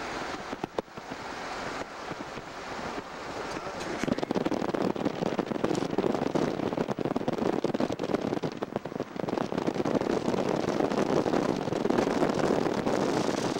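Wind rushing and crackling over a camcorder microphone from a moving van, mixed with road noise. It grows louder about four seconds in.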